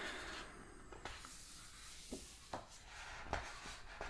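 Hands turning and smoothing the paper pages of a large hardcover book: a paper swish fading at the start, then a few soft taps and rubs on the pages.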